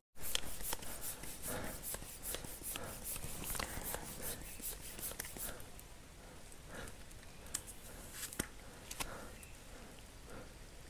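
Bicycle floor pump worked in quick, even strokes to inflate a punctured tyre, soft hissing clicks, growing fainter and more scattered about halfway through.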